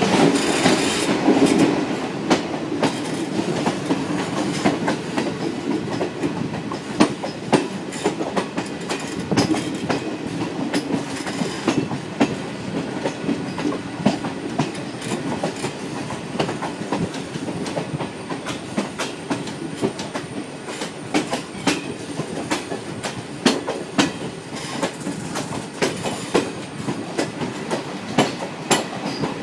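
Indian Railways passenger coaches running over the track, a steady rumble with frequent irregular clacks of the wheels over rail joints, heard from an open coach door. A little louder for the first two seconds or so.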